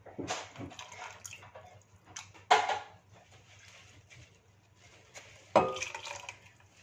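Kitchen utensils knocking and clinking against a cooking pot, with liquid sounds, as sambar is handled; two sharp, ringing knocks stand out, one about halfway and one near the end.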